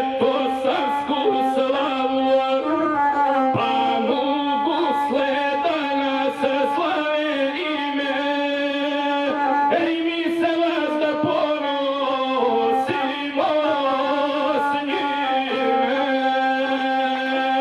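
A man sings an epic song in Serbian to his own accompaniment on the gusle, a one-string bowed folk instrument. He holds notes on a steady line with wavering, gliding ornaments.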